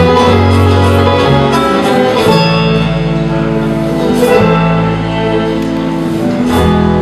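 Bluegrass band playing live: banjo picking over upright bass, with washboard and fiddle in the mix.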